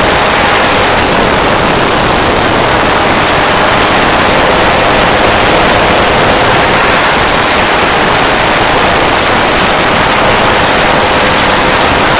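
Loud, steady wind rush on the microphone of an open-cockpit weight-shift ultralight trike in flight, with the trike's engine holding a steady drone underneath.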